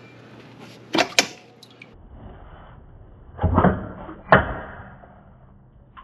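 Metal parts clinking under an ATV engine as the oil filter cover comes off: two sharp clicks about a second in, then a clatter and a sharp ringing metal knock in the middle as the cover's spring falls out.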